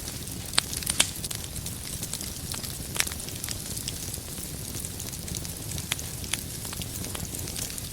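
Wood fire crackling in a fireplace, sharp pops from the burning firewood every second or so over a steady low rumble of flame; the loudest pops come about a second in and again about three seconds in.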